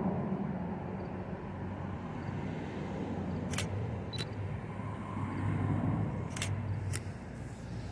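DSLR camera shutter clicking four times, in two pairs, each pair a little over half a second apart, over a steady low background rumble.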